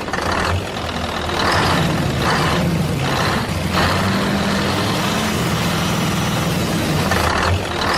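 A motor running steadily with a low, engine-like hum, broken by several short hissing bursts.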